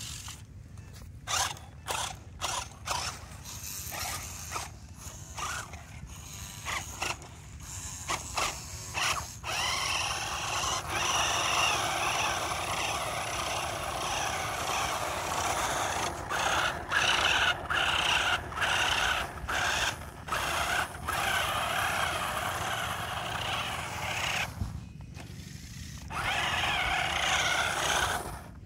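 Toy RC rock crawlers' small electric motors and plastic gearboxes whining as they drive through loose sand. For the first nine seconds or so they run in short stop-start bursts. From about ten seconds in they run for long stretches broken by brief pauses.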